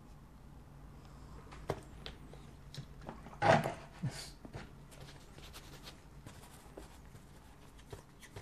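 Small knocks and clicks of painting tools being handled over a low room hum, with a brief louder scraping rustle about three and a half seconds in.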